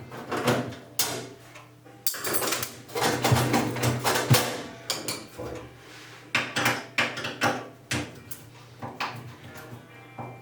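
Sheet-metal parts of a microwave oven clanking and rattling as it is taken apart, a quick run of sharp knocks and clatters that is busiest in the first half.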